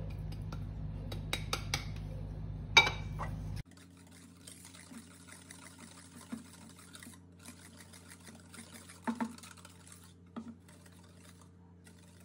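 Light clicks and one sharp knock of a small dish against a stainless steel bowl as cornstarch is added, over a low steady hum that cuts off abruptly about three and a half seconds in. After that a hand wire whisk scrapes and stirs faintly through thick cheesecake batter in the steel bowl, with a few small ticks.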